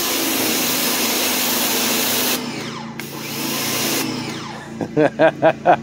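Ryobi 1900 psi electric pressure washer spraying concrete through a 15-degree nozzle: a loud hiss of the water jet over the steady hum of the electric motor and pump. The spray drops away briefly about two and a half seconds in, and again after about four seconds. Near the end comes a quick run of about five short pulses.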